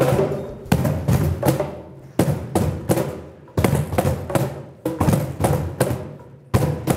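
Cajóns struck by hand in a loose group rhythm, about three hits a second, each a low thump with a sharp slap on top.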